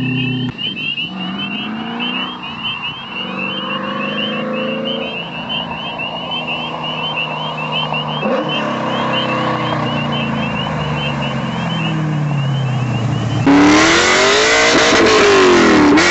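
1999 Camaro SS's 6.0-litre iron-block V8, with ported L92 heads and a custom-grind cam, accelerating hard: its note climbs in pitch through several rises while the car is further off and coming toward the listener. About 13 seconds in it turns suddenly much louder as the car passes close at high revs, its pitch dropping and then climbing again.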